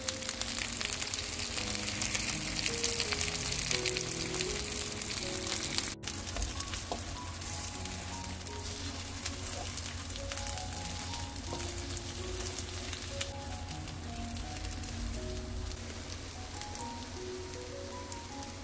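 Egg-dipped perilla leaves sizzling in hot oil in a frying pan, a steady crackling hiss that is loudest in the first few seconds and settles a little after a brief break about six seconds in. Light background music with a simple melody plays under it.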